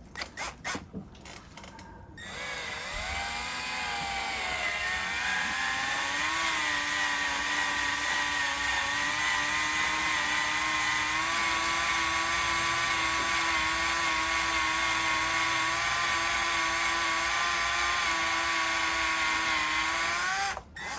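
Power drill turning a 1/8-inch left-hand cobalt drill bit into a broken bolt stuck in an engine block, run in reverse to bite and back the bolt out. A few clicks come first. The motor starts about two seconds in, climbs in speed over the next few seconds, runs steadily, and stops just before the end.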